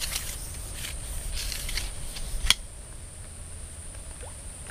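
Steady high-pitched drone of insects, with soft rustling and one sharp click about two and a half seconds in.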